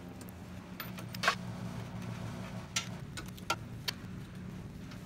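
A handful of light metallic clicks and taps from hand tools and bolts being worked at a motorcycle transmission mount, the loudest about a second in, over a low steady hum.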